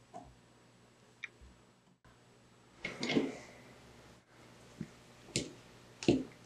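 Small metal clicks and knocks of telephone magneto parts being handled and fitted by hand: a screwdriver on the crank bracket, then the toothed drive gear being set onto the magneto. About half a dozen separate clicks, the loudest cluster about halfway through.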